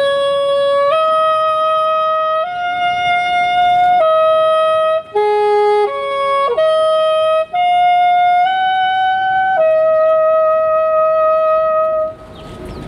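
Soprano saxophone playing a slow solo melody of long held notes, with a short run of quicker notes midway. The last note is held longest and stops near the end.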